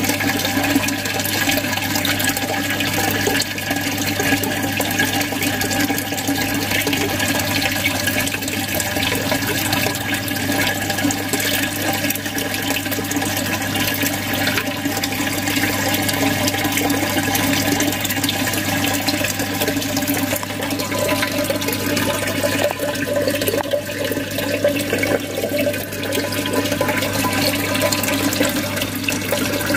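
Aquarium filter return water falling into a low, shallow water level, splashing and gurgling steadily. Because the tank is shallow, the streams drop from a height and churn the surface into bubbles. A steady low hum runs underneath.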